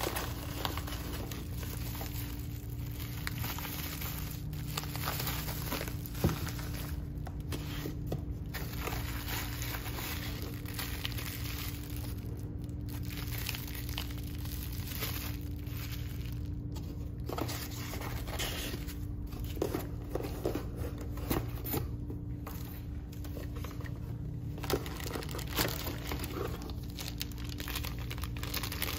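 Bubble wrap and plastic packaging rustling and crinkling as it is handled and pulled from a cardboard box, with scattered sharper clicks and crackles.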